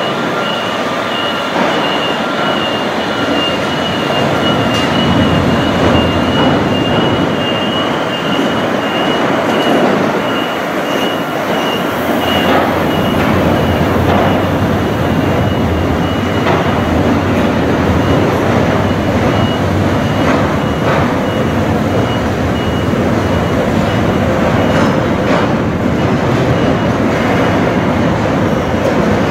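Steady, loud mechanical rumble and rattle of a large moving vehicle, with a high electronic beep repeating rapidly through the first half and fading out.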